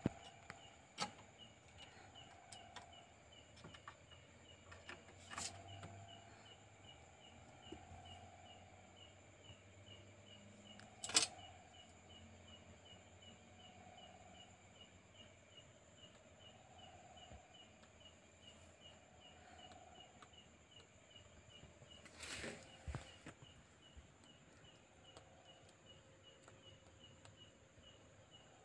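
Faint quiet ambience with a thin steady high hiss and a small high chirp repeating about twice a second. A few sharp knocks break in, the loudest about eleven seconds in.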